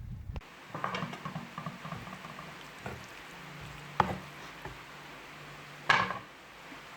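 Cooking pots and utensils clattering: scattered knocks about a second in, then two sharp metallic knocks about four and six seconds in, the last the loudest, over a steady low hiss from the cooking.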